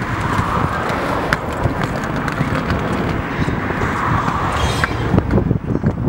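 Road traffic passing, with an uneven wind rumble on the microphone and a few small clicks; the high hiss thins out about five seconds in while the low rumble grows.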